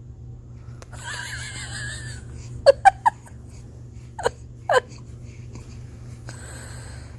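A baby making short, sharp bursts of sound, three in quick succession a little before the middle and two more about a second and a half later, with breathy, wavering vocalising before and after them.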